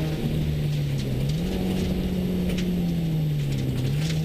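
Subaru rally car's engine heard from inside the cabin, holding a steady note at speed on a gravel road. Its pitch rises slightly about a second in and eases back near the end, over a steady wash of tyre and gravel noise.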